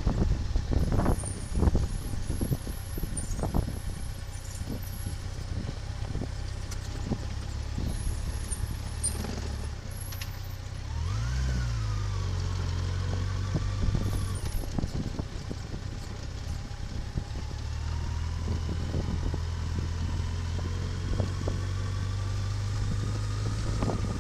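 A motor vehicle's engine running steadily, with many short knocks and rattles. About eleven seconds in, the engine note rises briefly, then drops and settles.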